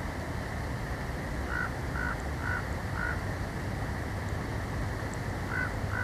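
Steady wind noise of a snowstorm on the nest camera's microphone, with a series of short bird notes, about two a second, starting about a second and a half in, pausing, then starting again near the end.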